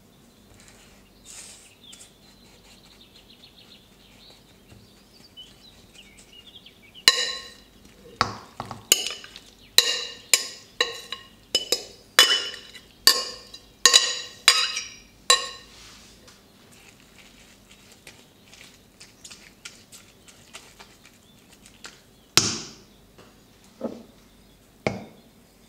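Dishware clinking: about a dozen quick, sharp, ringing knocks of the same object being struck, bunched over some eight seconds, then three more spaced a second or two apart near the end.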